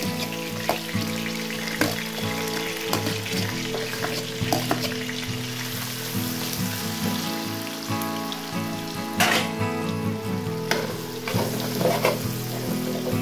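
Freshly added chopped onions sizzling in hot oil with garlic, stirred with a metal spoon that scrapes and clicks against the enamel pot now and then, most sharply about nine seconds in.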